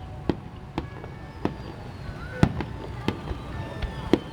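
Aerial fireworks shells bursting in an uneven volley, about ten sharp bangs of varying loudness over a steady low rumble, with faint thin whistling tones slowly falling in pitch.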